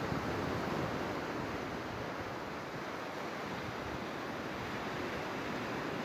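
Black Sea surf washing up a sandy beach in low, foamy waves: a steady rush of water.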